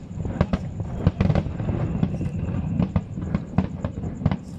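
Aerial firework shells bursting in a rapid, irregular series of about a dozen sharp bangs over a continuous low rumble.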